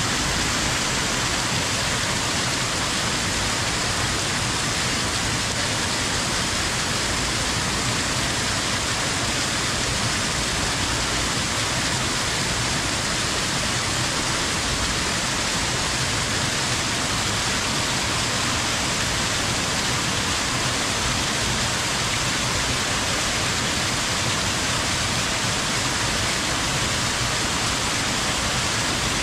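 Waterfall: a steady, unbroken rush of falling water with no change in level.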